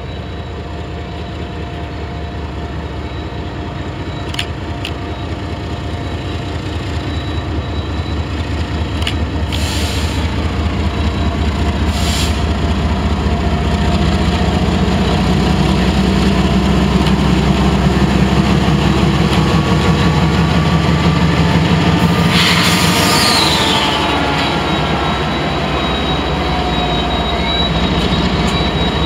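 Diesel-electric freight locomotives passing close by, their engine drone building steadily as they approach and pass, then loaded freight cars rolling by with wheel noise on the rails. A brief high screech with a falling pitch comes a little past two-thirds of the way through.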